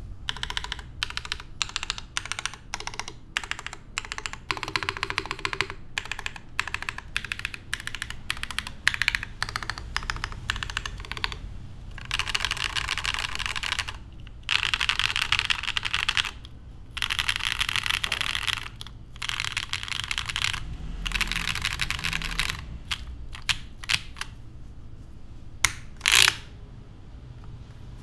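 Typing on an HMKB TKL mechanical keyboard with lubed Cobalt POM switches on a steel plate and GMK Fro.yo keycaps. It starts with separate keystrokes, then comes four bursts of rapid typing of about two seconds each, then a few scattered strokes with one louder clack near the end.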